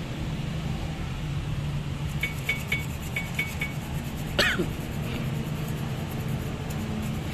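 Light metallic ticks, then one sharp clink with a short falling ring about halfway through, as a car's front disc brake caliper and pads are handled and fitted, over a steady low hum.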